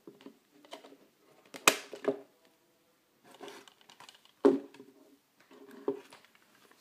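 Hands handling a metal Blu-ray steelbook case: the disc pressed onto its plastic hub, then the case shut and stood on the table. The handling gives a few sharp clicks and knocks amid faint rustling, the loudest just under two seconds in.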